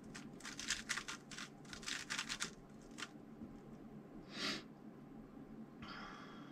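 Plastic 3x3 speedcube being turned by hand, its layers clicking in quick clusters for the first two and a half seconds, then single turns. There is a short swish about four and a half seconds in and a brief rustle near the end.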